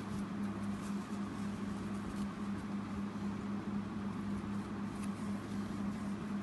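Steady low electrical hum with room hiss, broken by faint scattered ticks and scratches.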